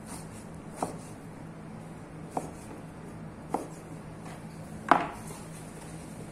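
Large butcher's knife knocking on a white plastic cutting board as pork is cut into small pieces: four separate knocks, the loudest about five seconds in, over a steady low hum.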